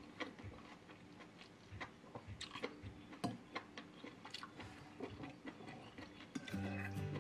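A person chewing a mouthful of mushroom curry close to the microphone, with irregular soft clicks.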